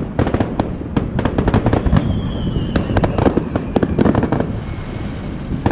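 Aerial fireworks display: a dense run of shell bursts and crackling reports, rapid bangs piling onto one another with a deep rumble. A thin falling whistle sounds about two seconds in.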